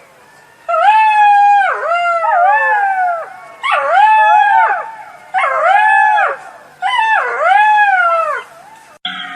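Jackals howling in chorus: four loud rounds of overlapping wailing howls, each voice rising then falling in pitch, several animals at once.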